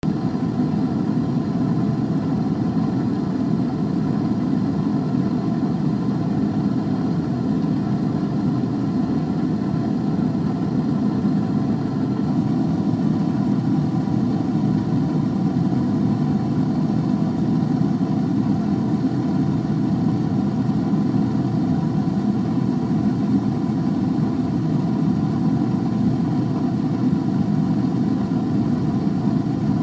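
Steady, unchanging mechanical drone of a running machine, a low hum with faint steady tones above it.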